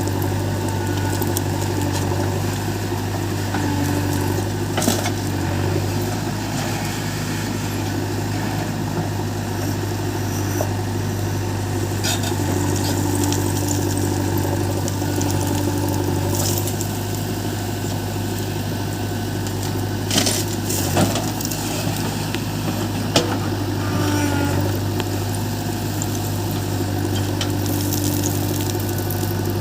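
Heavy diesel engine running steadily, with several short sharp knocks or clanks scattered through.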